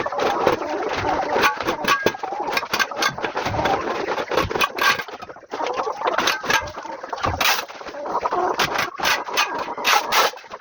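Chickens clucking in a deep-litter poultry house, over repeated short scrapes and scoops of a shovel working through the manure and litter.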